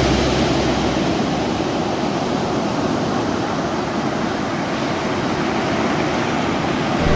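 Ocean surf breaking and washing up on a sandy beach: a steady rushing hiss.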